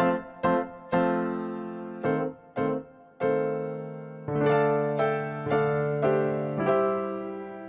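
Background music: an electric piano playing separate notes and chords, each struck and left to ring and fade.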